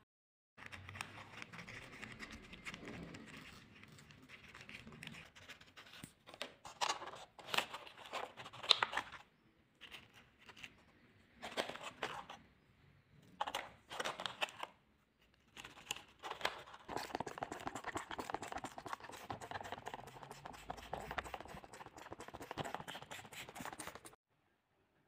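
Thin plastic grow bags crinkling and rustling as hands handle them, in irregular spells, with a denser spell of crackling in the last several seconds before it stops.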